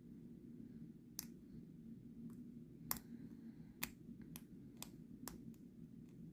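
A hook pick working the pin stack of a 5-pin brass padlock under a tension wrench, with about seven sharp, irregular clicks as the pins are lifted and set. The loudest clicks come about three and four seconds in.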